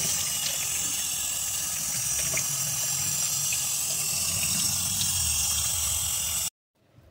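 Tap water running steadily from a faucet into a sink, splashing over a striped bass as it is rinsed by hand. The sound cuts off suddenly near the end.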